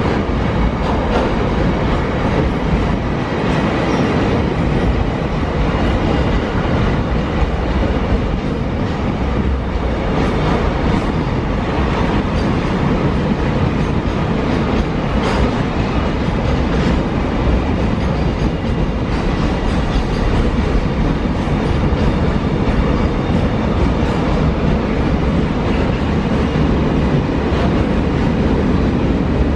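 Container freight train rolling steadily past, a continuous rumble of wagon wheels on the rails with irregular clicks over rail joints.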